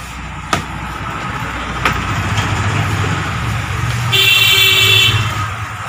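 A motor vehicle passing on the road, its engine rumble building, with a single horn toot of about a second a little after four seconds in. Two short knocks come in the first two seconds.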